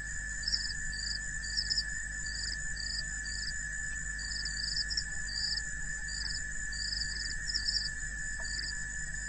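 Insects chirping: short high chirps in irregular groups, about one or two a second, over a steady high continuous trill and a low hum.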